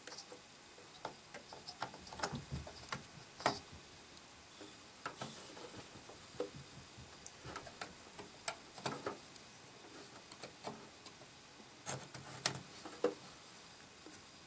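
Scattered light clicks and taps of a DDR3 RAM stick being handled and lined up in a motherboard's plastic DIMM slot and latches, while it is pressed in to snap into place.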